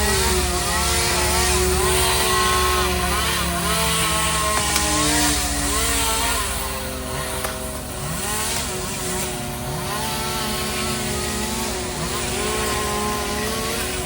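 Chainsaw running and being revved up and down again and again while cutting, over the steady low rumble of an engine.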